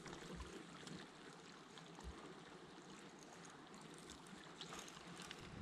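Near silence: a faint steady hiss with a few soft low knocks.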